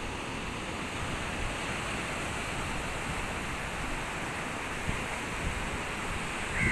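Steady wash of sea surf breaking on a beach, with light wind on the microphone. A brief high chirp near the end.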